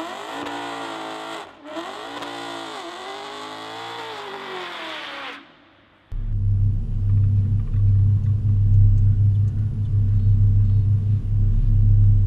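A high-revving engine rising and falling in pitch several times, cutting off about five seconds in. After a moment of near quiet, an Audi R8's V10 idles with a steady low rumble, heard inside the cabin.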